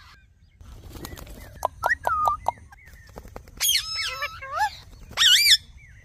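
Ringneck parakeets calling: a run of short chirps and clicks with a wavering whistle, then a burst of shrill screeches, the loudest a wavering squawk near the end.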